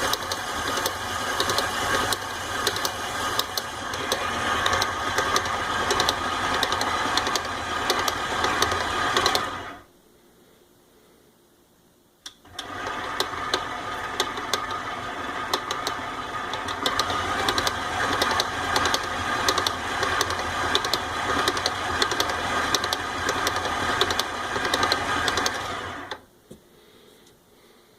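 KitchenAid 7-Quart Pro Line stand mixer (KSM7586) running through cookie dough with a constant rapid clicking, a noise KitchenAid acknowledges for this model. It stops a little under ten seconds in, stays off for about two and a half seconds, then runs again and stops about two seconds before the end.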